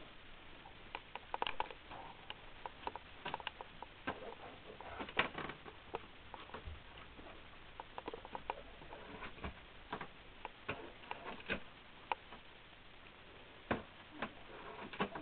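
Irregular light clicks and taps of small things handled and knocked on a tabletop among paper and cardboard, a few sharper knocks standing out.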